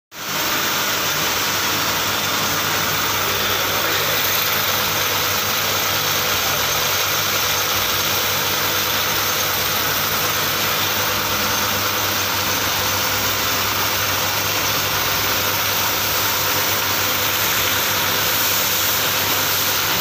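Belt-driven three-piston high-pressure car-wash pump and its 3 HP single-phase induction motor running steadily: a constant hum with a hiss over it.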